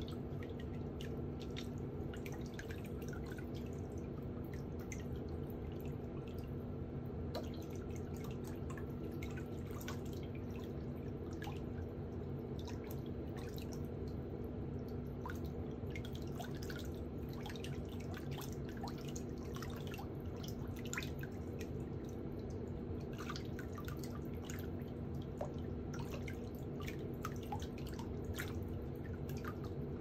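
Many small, irregular clicks and ticks over a steady low hum.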